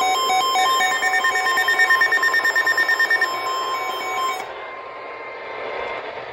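Weather alert radio alarms going off together: several overlapping electronic beeps pulsing rapidly over a steady high tone, marking an incoming warning. They cut off about four and a half seconds in, leaving radio hiss.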